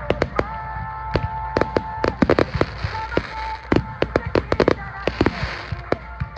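Aerial fireworks bursting in quick succession: many sharp bangs and crackles overlapping, with stretches of hissing crackle about halfway through and again near the end.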